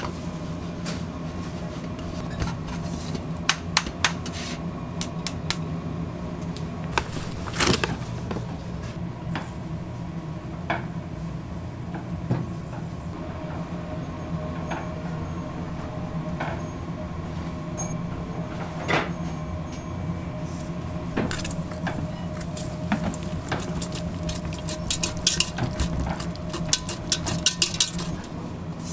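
Stainless steel bowls, sieve and utensils clinking and tapping against each other over a steady kitchen machinery hum. Near the end comes a quick run of metallic clinks as a wire balloon whisk beats eggs in a steel bowl.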